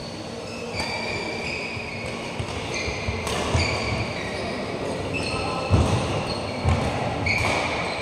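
Badminton doubles rally in a large hall: repeated short squeaks of court shoes on the synthetic mat, several sharp racket strikes on the shuttlecock, and low thumps of feet landing.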